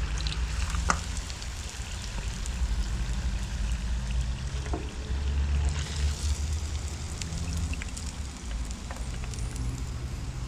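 Crumbed herring fillets deep-frying in a pan of very hot oil: a steady sizzle and bubbling, with a few clicks of metal tongs as the fillets are turned and lifted out, over a steady low rumble.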